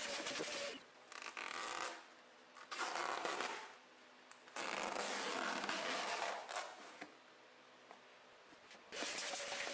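Rubber liner mat scraping and rubbing against the plastic of a car's centre console storage bin as it is worked loose and pulled out, in several bursts of a second or two with short pauses between.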